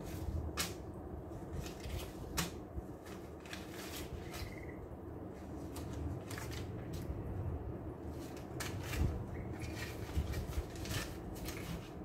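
Handling noise: light clicks, taps and rustles of small objects being picked up and fiddled with by hand, scattered irregularly over a steady low room hum.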